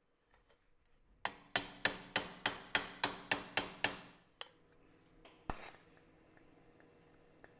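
Hammer blows on a sheet-metal chain guard held over a metal post: a quick run of about eleven sharp, ringing strikes, three to four a second. Two single knocks follow.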